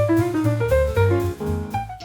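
Background music: a jazzy piano tune over a walking bass line and drum kit, fading out near the end.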